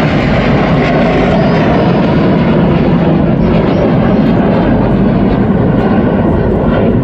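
Jet noise from a formation of BAE Hawk T1 jets flying overhead: a loud, steady rushing rumble.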